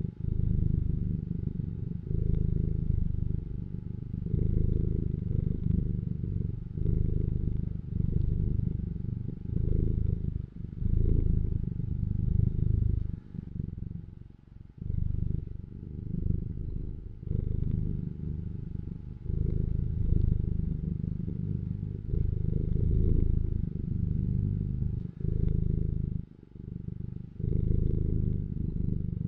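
Domestic cat purring, a low continuous rumble that swells and eases with each breath, with a brief pause now and then.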